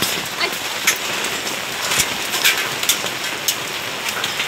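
Heavy rain with hailstones falling: a steady hiss with sharp, irregular hits scattered through it.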